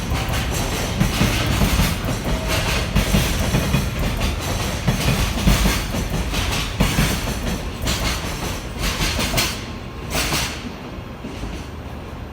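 Freight train wagons rolling past, wheels clattering over the rail joints in repeated knocks. The clatter dies down after about ten seconds as the end of the train passes.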